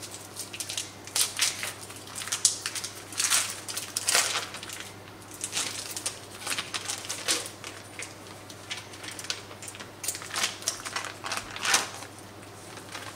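Cream cheese being put into a mixing bowl: a run of irregular scrapes and clicks from handling the cheese, its packaging and utensils, some strokes louder than others.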